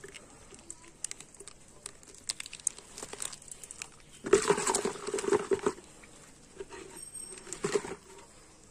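A plastic sachet crinkling and clicking as it is squeezed out over a plastic jug. A hand then churns the water inside the jug, with splashing that is loudest about four seconds in and again briefly near the end.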